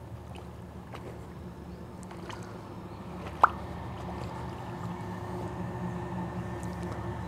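Shallow river water gurgling and lapping around a pair of waterproof boots standing in the current. A brief, sharp sound stands out about three and a half seconds in.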